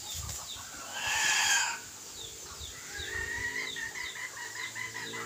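Young red junglefowl-type decoy rooster crowing once, a short, loud crow about a second in, followed by quieter calls.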